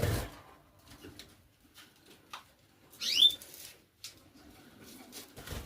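Canary giving a short, bright rising call about three seconds in, with a smaller chirp just before it and scattered faint clicks around them.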